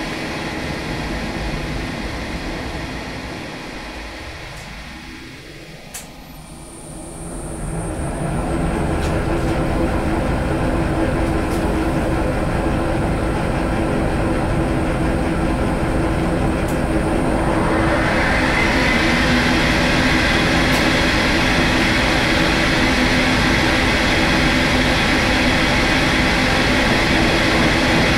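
Milling machine cutting gear teeth with a disc-shaped gear cutter, a steady mechanical running sound. In the first few seconds a pitch glides down and then back up, with one sharp click about six seconds in; about eighteen seconds in a louder, harsher cutting noise sets in and holds.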